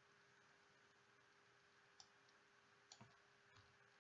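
Near silence with a faint steady hum and a few faint computer mouse clicks, about two and three seconds in, as text is selected on screen.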